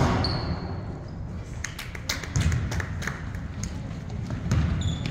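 Basketball players' sneakers thudding and squeaking on a hardwood gym floor as they run, with scattered knocks of the ball bouncing, in a large echoing gym.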